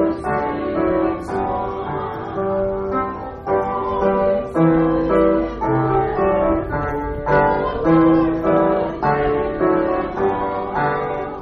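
Piano music: a steady run of notes and chords.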